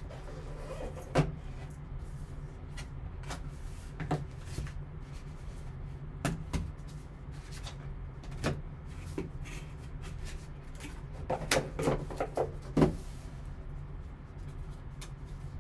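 A cardboard trading-card box and its foam insert being handled and opened: scattered knocks, scrapes and rustles, with a quick run of clicks about three-quarters of the way through, over a steady low hum.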